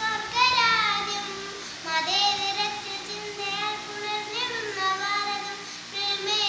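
A young girl singing a song: phrases of long held notes that slide up and down in pitch, with short breaths between them.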